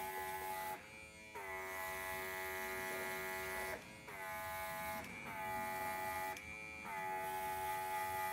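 Small built-in electric compressor of a Worx Maker X airbrush running with a steady buzzing hum. It stops briefly four times and starts again, its pitch sliding down a little as it settles after each restart.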